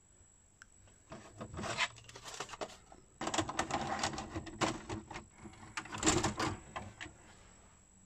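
Philips VR402 VHS video recorder ejecting a cassette and drawing it back in: a run of clicks and clunks from the front-loading mechanism, with its motor whirring and the cassette sliding in the slot.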